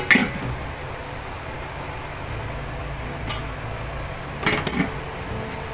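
A lid clanks down onto an aluminium wok of chicken pieces cooking dry in their own juices, to drive off the water. A steady low hum runs underneath. About four and a half seconds in comes a short double clatter of the lid and pan.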